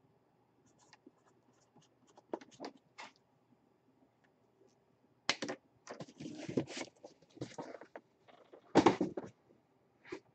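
A cardboard box being handled and opened on a table: scratching and light clicks at first, then louder rustling and scraping of cardboard from about five seconds in, with the loudest burst near the end.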